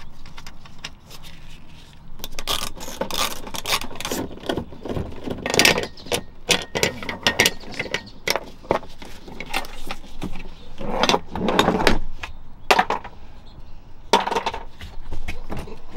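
Irregular clicks, clinks and knocks of a chrome ratchet and socket being handled while plastic cargo-area trim panels are worked loose. The knocks are loudest about two-thirds of the way through and near the end.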